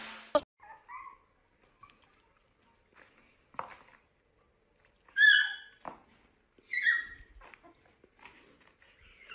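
A puppy yipping in short, high calls: a few faint whimpers, then two loud, high yelps about a second and a half apart midway through.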